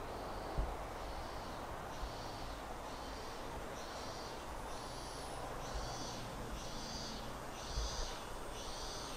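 A rhythmic insect call: short, high buzzy chirps repeated a little more often than once a second, growing louder from about halfway through. Under it there is a low outdoor rumble of wind and a few soft thumps.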